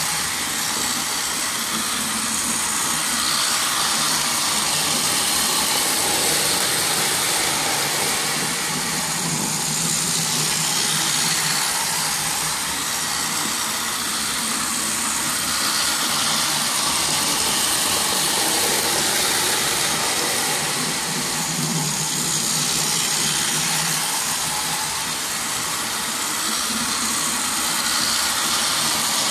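Battery-powered toy trains running on plastic track: a steady whir of their small electric motors and gears with the clatter of wheels on the track, swelling and fading slightly as they circle.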